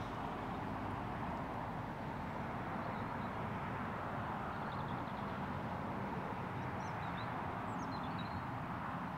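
Steady low outdoor background rumble with a few faint, short, high bird chirps about three seconds in and again near the end.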